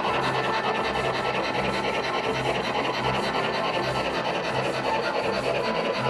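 Gauge 1 model locomotive running on its track: a steady rasping rumble.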